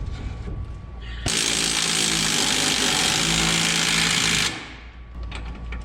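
A power tool running in a loud burst of about three seconds, starting about a second in, then starting again at the very end.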